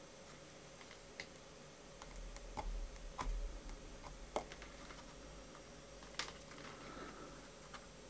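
Faint, scattered clicks of multimeter test-probe tips tapping against the stripped wire ends and the metal pins of a 3.5 mm headphone jack, with soft handling noise between them.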